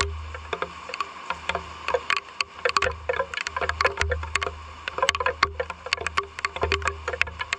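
Raindrops dripping and tapping irregularly on a hard surface, several sharp ticks a second, over a low rumble.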